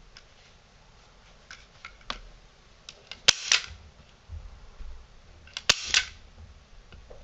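Manual staple gun fired twice, about two and a half seconds apart, driving staples through canvas into a wooden stretcher frame: each shot a sharp snap with a short rattle after it. A few light ticks of handling come before the first shot.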